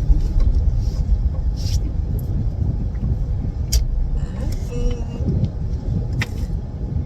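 Steady low rumble of a car driving, heard from inside the cabin, with a few brief faint clicks.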